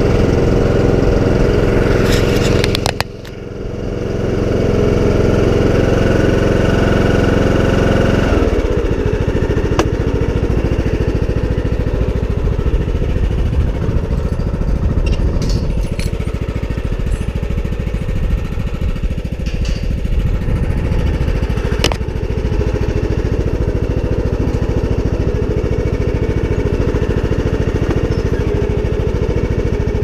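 John Deere D110 lawn tractor engine running, now that its no-crank, no-start fault has been fixed. The note is steady at first, with a brief dip in loudness about three seconds in. From about eight seconds in it turns rougher and more uneven.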